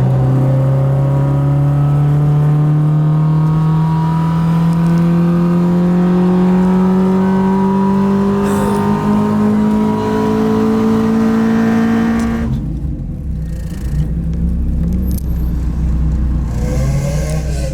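Car engine pulling hard in one gear, its note climbing slowly and steadily for about twelve seconds. Then the throttle comes off and it drops to a low rumble.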